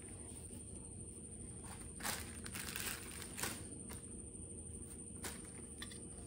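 White tissue being pulled and crumpled in the hands for about a second, then a sharp tap and two fainter clicks.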